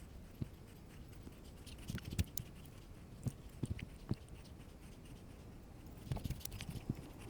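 Faint, scattered clicks and light ticks from a spinning reel and tackle being handled as a soft-plastic lure is cast and wound in, with the clicks bunching together at a few moments.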